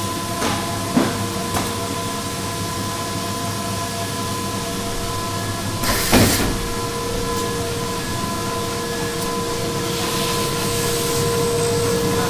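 Guitar factory floor machinery droning steadily, with several constant hum tones. A short burst of noise comes about six seconds in, and a higher steady hum joins about a second later.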